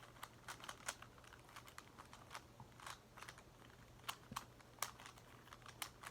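Plastic clicks and clacks of a Megaminx puzzle's faces being turned by hand, a faint, irregular run of quick clicks.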